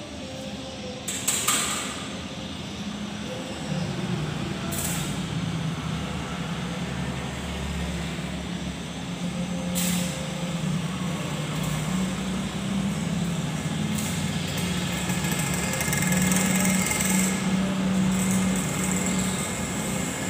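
Electric arc welding on a steel window trellis: a steady crackling hiss with a low hum underneath, and a few sharp cracks.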